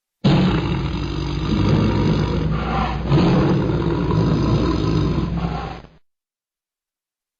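Tiger growling: one long, rough, low growl that swells again about halfway through, then fades out.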